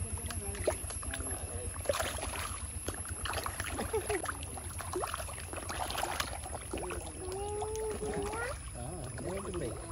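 Fish splashing and churning at the surface of a pond as they crowd in to snatch food from a hand, a busy run of small splashes and slaps of water. A voice calls out briefly in the second half.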